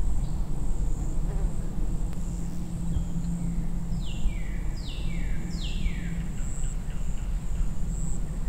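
Outdoor nature ambience: a steady high, insect-like trill over a low rumble. About four seconds in come three quick falling chirps in a row.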